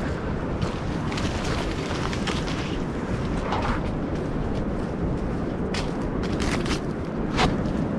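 Steady low rumble of wind on the microphone, with scattered crunches and rustles of footsteps and brush on a forest trail, more of them about a second in and again near the end.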